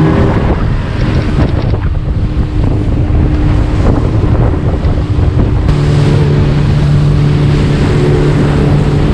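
Yamaha 115 outboard motor driving a motorboat at speed, with heavy wind buffeting the microphone and water rushing along the hull. The engine's steady drone stands out more clearly from about six seconds in.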